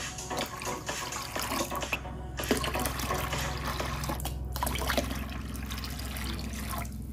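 Liquid poured from a cup into a glass bowl of soy-sauce pickling brine, splashing steadily. Two brief pauses in the pour come about two seconds and four and a half seconds in.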